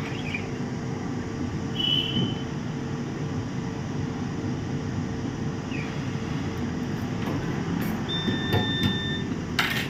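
Hot air rework gun blowing steadily while a capacitor is desoldered from a laptop motherboard, with a few short high beeps.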